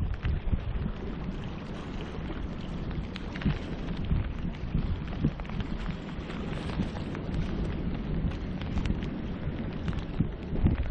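Rain falling hard, a dense hiss full of small sharp drop ticks over a steady low rumble.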